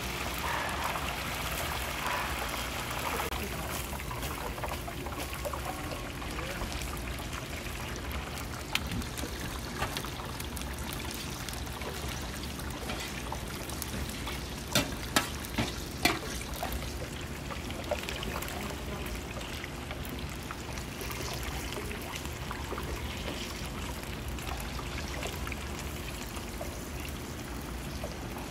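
Hot oil sizzling steadily as battered pork pieces deep-fry for sweet and sour pork. About halfway through come four sharp metal clinks of a ladle knocking against a wok.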